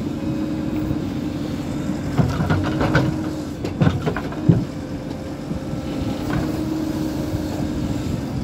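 JCB 4DX backhoe loader's diesel engine running steadily while its bucket dumps wet mud into a tractor trolley, with a few heavy thuds and knocks between about two and five seconds in.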